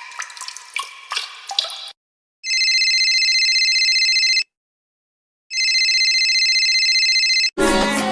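Water dripping in quick plinks, then after a short gap two long electronic rings of about two seconds each, a second apart. Music starts right at the end.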